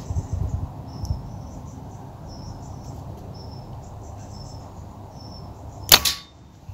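A .177 Reximex Myth Lite pre-charged pneumatic air rifle fires a single shot about six seconds in: one sharp crack with a short ring. Before it there is a low background rumble and repeated high chirping.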